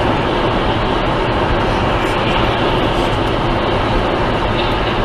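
Steady road, tyre and engine noise of a car driving at highway speed, heard from inside the car through the dash camera's microphone.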